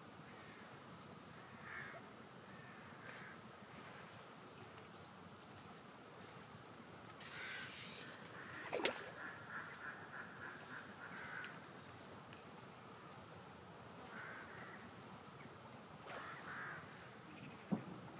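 Waterfowl calling faintly, in short scattered calls with a quick chattering run in the middle. A sharp click comes about nine seconds in, just after a brief rustle.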